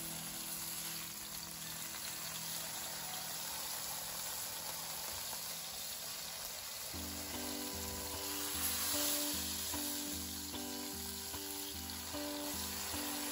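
A block of beef round searing in oil in a non-stick frying pan, sizzling steadily, as it is quickly browned on each side before roasting. The sizzle swells for a moment about nine seconds in.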